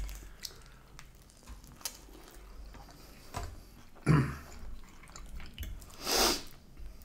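Eating at a table: quiet chewing with scattered light clicks of metal cutlery on china plates, a louder knock about four seconds in and a short breathy noise about six seconds in.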